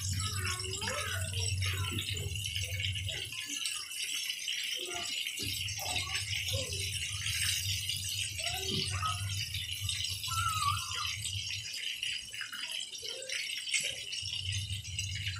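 Chicken pieces deep-frying in a wok of hot oil: steady sizzling and crackling, with occasional clicks and scrapes of a metal spatula against the pan. A low hum underneath cuts out twice.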